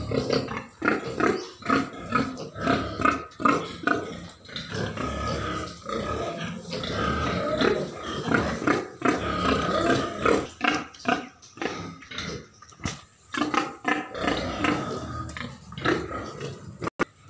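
White domestic pigs grunting, short grunts coming in quick, irregular succession with brief pauses.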